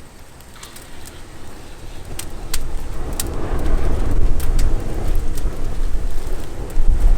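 Thermite grenade burning: a rushing, crackling roar that swells from about two seconds in, with sharp pops scattered through it.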